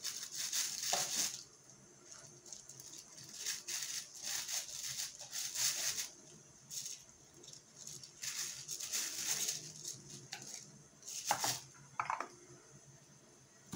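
Hands gutting a salted herring on a plastic bag: irregular bursts of crinkling plastic and wet tearing as the innards are pulled out.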